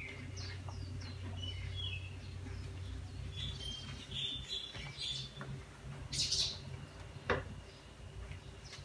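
Small birds chirping in short, repeated high notes, some rising and some falling, over a steady low hum. A single sharp click about seven seconds in.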